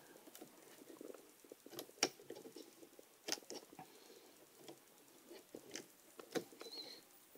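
Faint scratching and a few sharp small clicks of fingers working a flat ribbon cable into its connector on a laptop motherboard.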